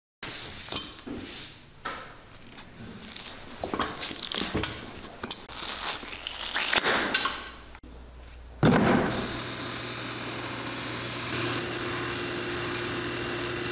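Worn boot sole being pried and peeled away by hand, with irregular scraping and tearing. About nine seconds in, a shoe-repair shop machine starts abruptly and runs with a steady hum as the boot is worked against it.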